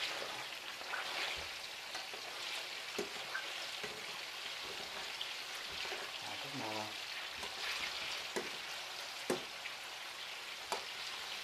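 Meatballs sizzling as they fry in a frying pan, a steady hiss, with a few sharp clicks scattered through it.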